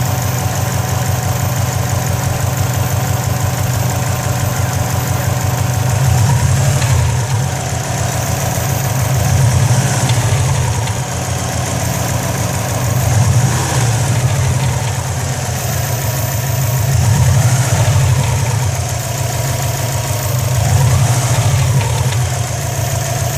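2004 Subaru WRX's turbocharged flat-four idling, blipped up in revs and back down five times, with a rattle that the owner places in the turbo area, where smoke is also coming from.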